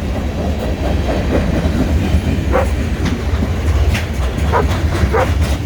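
Freight train rolling past close by, a steady heavy rumble with some clickety-clack of the cars. A dog barks several times over it.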